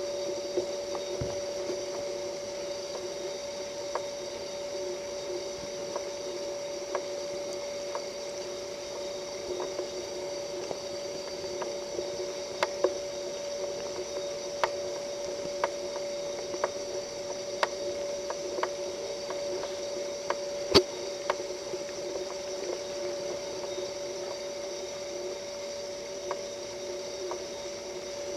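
A steady hum with a faint hiss above it, and soft, sharp clicks scattered about once a second, one of them louder about two-thirds of the way through.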